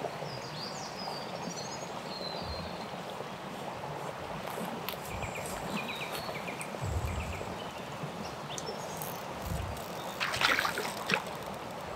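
Small brook running into a pool, a steady rush of flowing water.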